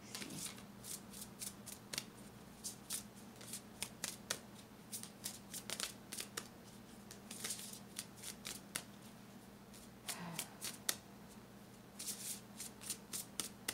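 A deck of tarot and oracle cards being shuffled by hand: a run of quick card flicks and snaps, with denser bursts of shuffling about seven and twelve seconds in, over a faint steady hum.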